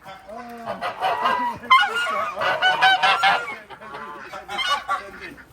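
A flock of geese honking, many calls overlapping, busiest in the middle of the stretch.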